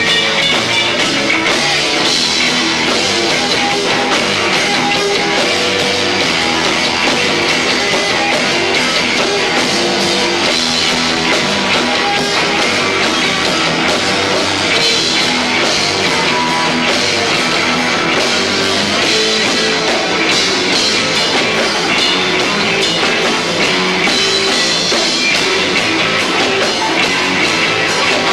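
Live rock band with electric guitar, bass and two drum kits playing loud, recorded lo-fi through a 1990s camcorder's built-in microphone.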